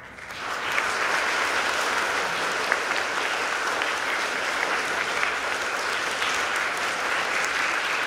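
An audience clapping steadily, a dense patter of many hands that swells in within the first second and holds. It welcomes the school principal to the lectern.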